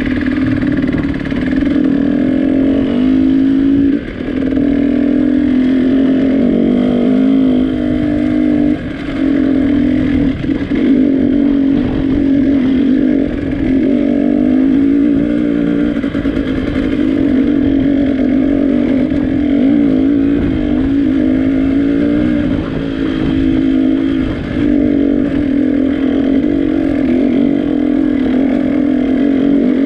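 Trail motorcycle engine running under way, its pitch rising and falling with the throttle, with brief drops in loudness a few times.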